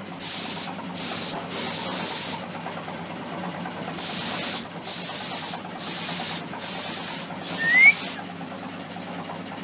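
Gravity-feed paint spray gun hissing in short bursts as the trigger is pulled and released: about eight sprays of under a second each, with a pause of over a second between the third and fourth. A steady low hum runs underneath.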